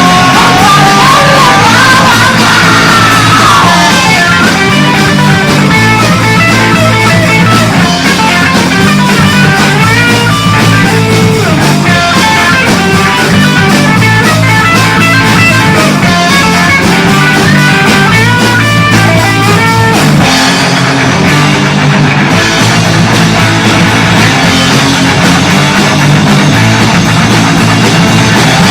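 Punk rock band demo recording playing loud and steady, with electric guitars over bass and drums; a lead line bends in pitch in the first few seconds.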